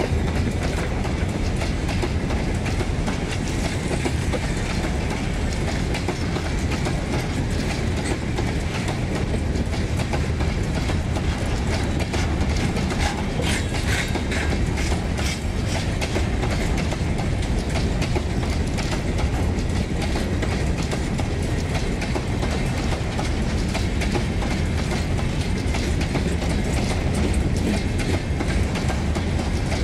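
Empty covered grain hopper wagons of a freight train rolling past at speed: a steady rumble of steel wheels on rail with continuous clickety-clack over the rail joints. A cluster of sharper metallic clicks and rattles comes about 13 to 15 seconds in.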